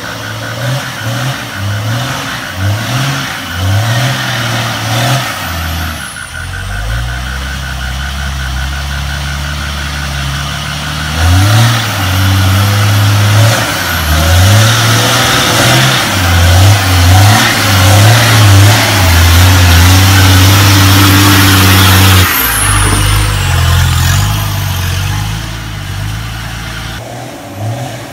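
Turbocharged Toyota 4x4's engine revving hard in repeated bursts under load in deep mud, the pitch jumping up and down as the throttle is worked. A thin steady whistle sits over the engine in the first third, and a loud rushing noise rises with the heaviest revving in the middle.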